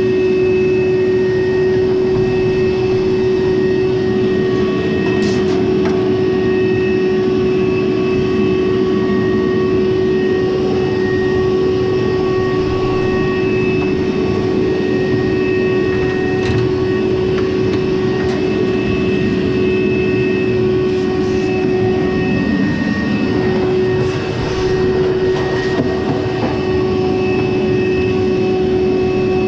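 Frigidaire dryer running, its drum turning with a loud, steady rumble and a constant hum, dipping briefly about two thirds of the way through.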